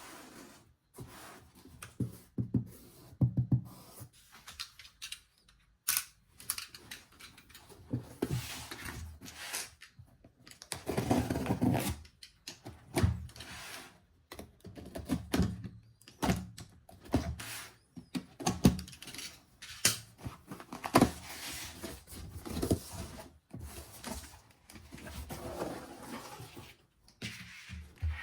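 Irregular clicks, knocks and short scrapes of a small plastic mini fan and its parts being handled, with brief pauses between.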